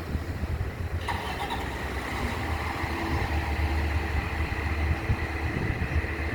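Fire engine's diesel engine running with a steady low rumble as the rig responds, a faint steady high tone joining about a second in.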